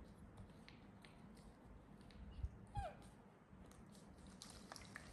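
Mostly quiet, with faint plastic clicks and a couple of soft knocks as a baby milk bottle is handled, and one short squeak falling in pitch from the baby monkey about three seconds in.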